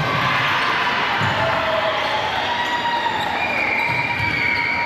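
Volleyball game in a gymnasium: steady noise of crowd and players, with a few dull thuds from play on the court.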